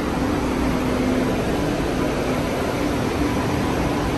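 Steady hum and rushing noise of an underground subway station, with a low droning tone.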